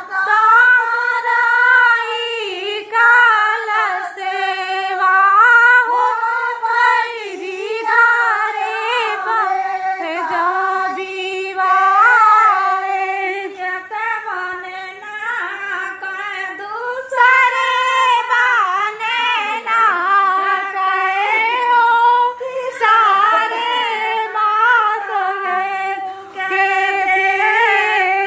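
Several women singing a Hindi folk song together, in one continuous verse.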